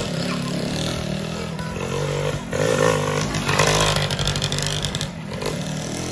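Tuned 116cc underbone motorcycle with a racing exhaust being ridden hard through a tight corner, the engine revving up and easing off; it is loudest as it passes close about three to four seconds in.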